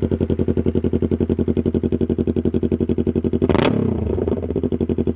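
Yamaha YZF-R3's 321 cc parallel-twin engine idling through an aftermarket exhaust, with one quick throttle blip about three and a half seconds in that rises and falls back to idle.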